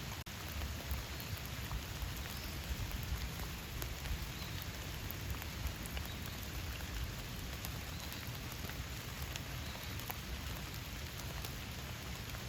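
Steady rain hissing, with individual drops ticking sharply here and there. The sound cuts out for an instant just after the start.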